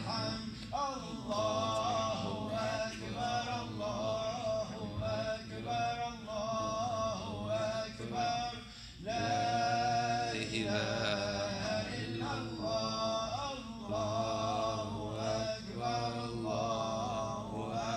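A man chanting unaccompanied in long, ornamented melodic phrases, with a pause for breath about nine seconds in: Islamic religious recitation.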